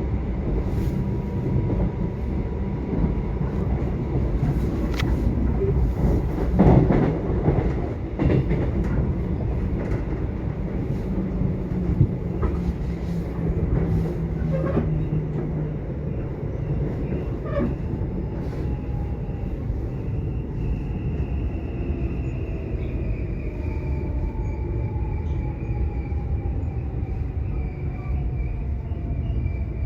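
Subway train running on the track: a steady low rumble, with a cluster of clattering knocks about a quarter of the way in. In the second half, thin high tones slowly fall in pitch.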